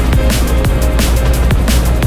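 Background electronic music with a fast, steady drum beat and heavy bass.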